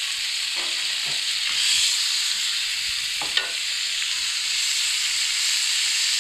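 Marinated chicken pieces sizzling steadily in hot oil in a non-stick frying pan while a silicone spatula stirs them, with a few faint scrapes. One sharp tap sounds about three and a half seconds in.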